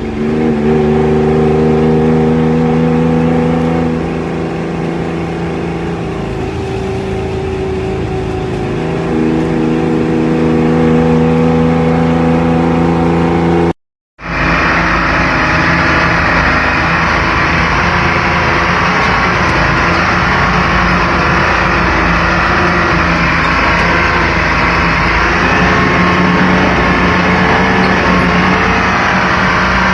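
Classic GMC's engine running with a deep, rumbling exhaust note, held fairly steady. It cuts out to silence for a moment about 14 seconds in. When it resumes the sound is rougher and noisier.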